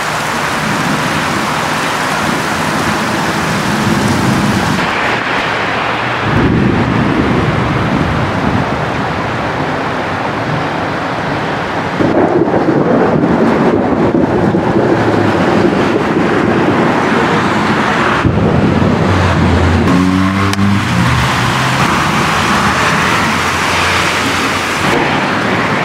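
Steady rain with rolling thunder, one rumble swelling about six seconds in and a longer one from about twelve seconds in. Around twenty seconds in, a vehicle's engine rises in pitch as it drives on the wet road.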